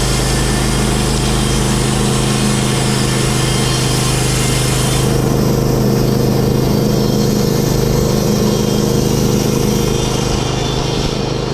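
TimberKing portable band sawmill running at a steady load, its engine going while the band blade cuts through a yellow pine log. A high hiss over the engine drops away about five seconds in.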